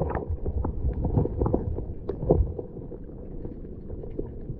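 River current heard underwater through a submerged action camera: a muffled, steady low rumble with scattered faint clicks and knocks.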